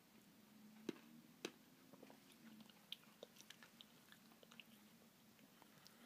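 Faint eating sounds of someone taking and chewing bites of a Dairy Queen M&M's Blizzard, soft-serve with M&M's candy pieces. There are two sharp clicks about a second in, then a run of small clicks and mouth sounds.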